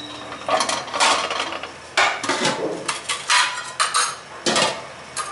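Metal ladle knocking and clinking against the side of an aluminium cooking pot, in a quick run of sharp strikes while the strained solids are pressed down in the broth.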